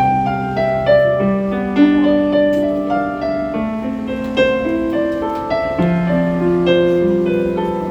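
Piano or keyboard playing a slow ballad, with long held bass notes changing every couple of seconds under chords picked out note by note; no singing yet.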